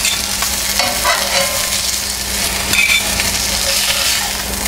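Grouper fillets sizzling in hot oil in a stainless steel frying pan: a steady frying hiss, with a few faint scrapes of a metal spatula in the pan about a second in as the cooked fillets are lifted out.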